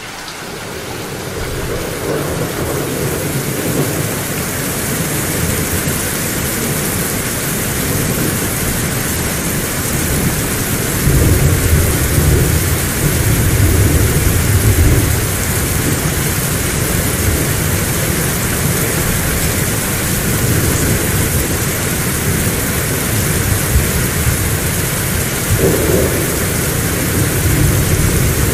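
Heavy rain falling steadily, with deep thunder rumbling, loudest around the middle and again near the end. The sound fades in over the first couple of seconds.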